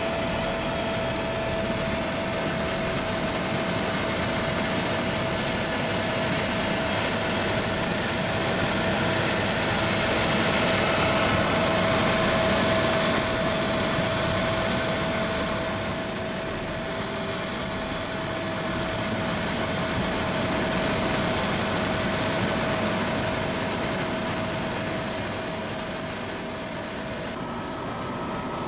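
Helicopter cabin noise in flight: the steady drone of the engine and rotors with a steady whine, getting a little louder partway through.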